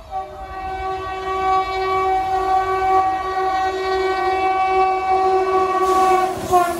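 Indian Railways electric locomotive sounding one long, steady multi-tone horn blast for about six and a half seconds as the express approaches at speed. The rush and rumble of the arriving train rise under it near the end.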